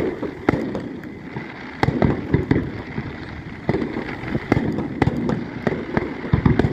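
Fireworks exploding: a rapid, irregular run of sharp bangs over a continuous crackle, with clusters of booms a couple of seconds in, around the middle, and near the end.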